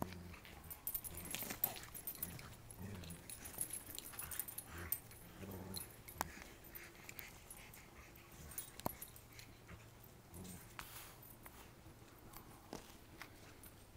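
Two Labrador retrievers tugging at and tearing a dog bed, giving short low play growls now and then, mostly in the first half.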